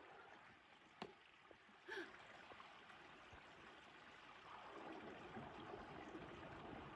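Near silence: faint outdoor background hiss with a couple of small clicks in the first two seconds.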